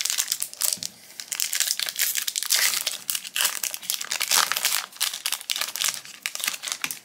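Foil trading-card booster pack wrapper crinkling and being torn open by hand, a dense crackle with a short lull about a second in.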